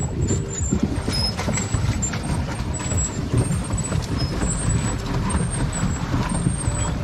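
Water churning and splashing under a pedal boat's paddle wheel as it is pedalled along, with wind rumbling on the microphone.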